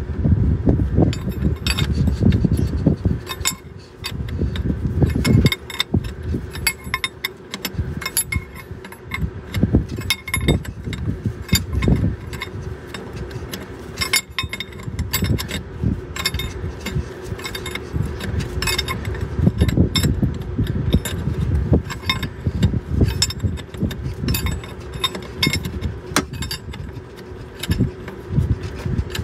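A hand wrench clinking and scraping on the air compressor's coolant line fitting as it is worked tight. Irregular metal clicks come with thumps and rubbing from the gloved hand and arm working in a cramped space.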